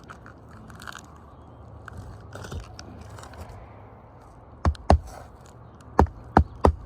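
Faint scraping and crunching of asphalt shingles being handled, then sharp hammer blows, first two and then a steady run of about three a second, as roofing nails are driven in.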